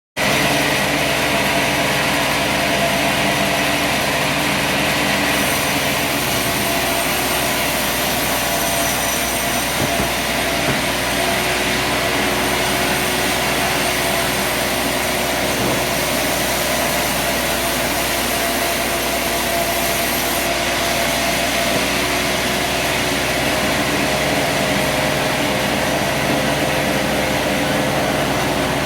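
Sawmill running steadily, a constant engine-driven machine sound with an even hum.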